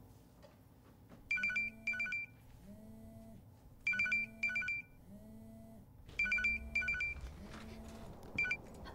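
Phone ringing with an electronic double ring: three pairs of rings about two and a half seconds apart, then one brief ring near the end as it is answered. A lower pulsing buzz sounds between the rings.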